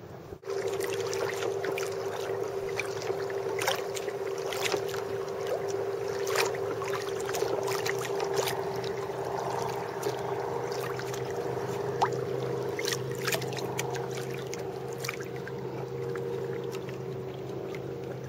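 Kayak on open water: frequent short splashes and knocks of water against the hull, over a steady low hum.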